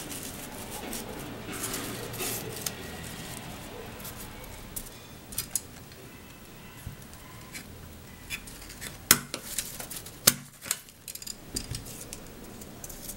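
Paper strips rustling as they are handled, with a few small ticks and two sharp clicks about nine and ten seconds in from a hand stapler fastening the paper loops.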